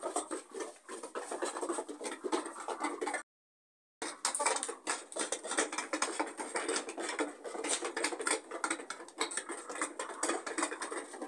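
Dense, irregular scratching and pattering clicks, broken by a short stretch of total silence about three seconds in.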